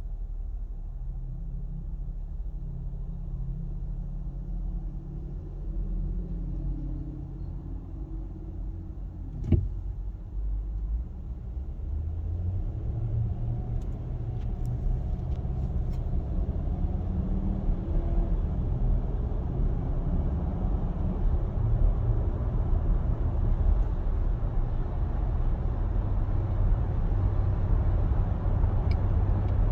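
2021 Nissan Armada's 5.6-litre V8 running with a low rumble that grows louder about twelve seconds in, with a single sharp click near ten seconds. This is the engine noise the owner finds unusually loud.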